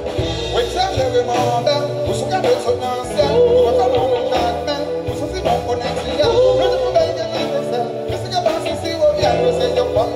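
Live Haitian band music: a wavering, vibrato-laden melodic lead line over held bass notes and a steady beat.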